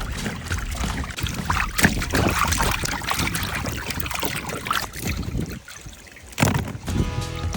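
Water sloshing and trickling in irregular splashes, as food is worked in water, with a brief lull about six seconds in.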